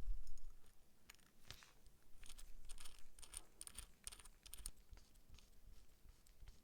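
A quick run of light clicks and scrapes from a small hard object being handled, thickest about two to four and a half seconds in, after a low thump at the very start.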